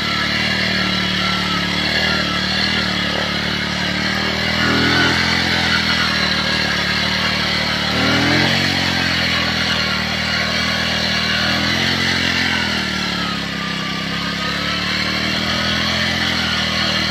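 Walton motorcycle's engine running hard under load as it drags a leveling ladder through waterlogged paddy mud, revving up about four and a half seconds in and again about eight seconds in, easing off briefly near thirteen seconds.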